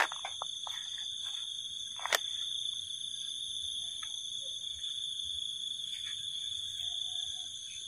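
Steady, high-pitched insect chirring, with a single sharp click about two seconds in.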